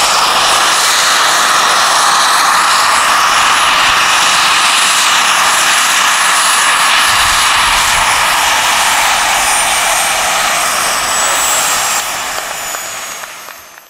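Model turbine engine of a large-scale RC Bell Jet Ranger helicopter running with its rotors turning: a steady loud rushing whine, with a thin high whistle that slowly falls in pitch over the second half. The sound drops about twelve seconds in and fades away.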